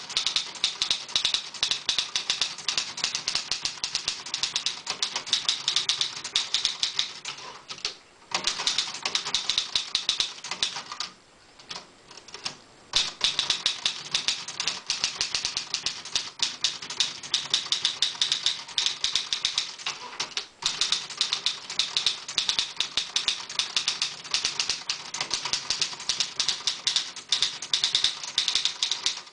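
Olivetti Lettera 22 portable typewriter being typed on quickly: a dense run of key strikes with a few brief pauses.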